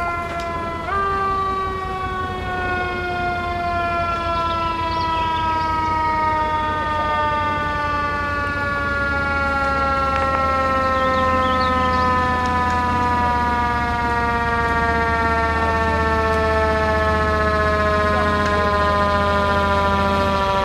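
Siren of a 1999 International 4800/Pierce Hawk wildland fire engine responding to a call: one long wail that jumps up in pitch about a second in, then slowly falls. The truck's engine rumble grows louder about halfway through as it approaches.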